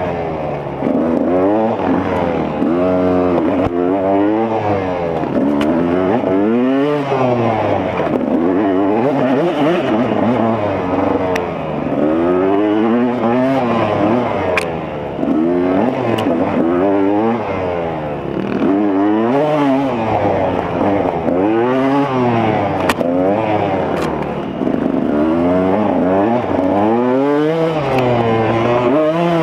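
Single-cylinder two-stroke engine of a 2015 KTM 200 XC-W dirt bike under race riding, its pitch rising hard and dropping back again and again as the throttle is worked through the gears, with a few sharp ticks scattered through it.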